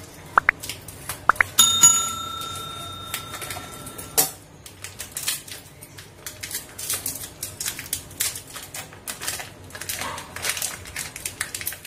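A subscribe-button sound effect: two quick clicks, then a bell chime held for about two and a half seconds. After it, rapid crinkling of the plastic wrappers of Oreo biscuit packets as they are handled and squeezed.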